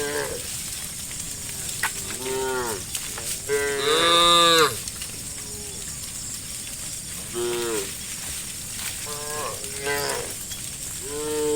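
Cows in a herd mooing: about six separate moos of differing pitch, the loudest and longest about four seconds in, another rising near the end.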